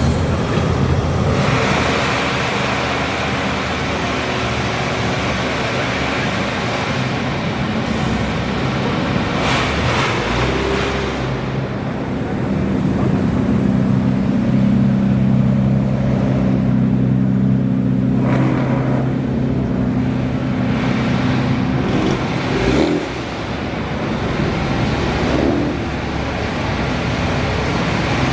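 Car engines running as modified cars drive slowly past, over a steady rushing noise. One engine's steady low hum is strongest from about halfway in and cuts off abruptly a little before the end.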